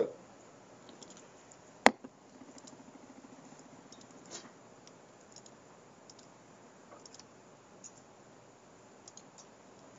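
Faint computer mouse clicks and keyboard key taps, scattered through the quiet, with one sharper click about two seconds in.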